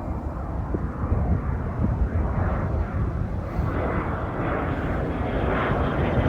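Dassault Falcon 10 business jet departing, its twin turbofan engines producing steady jet noise that grows louder, with a faint high whine near the end.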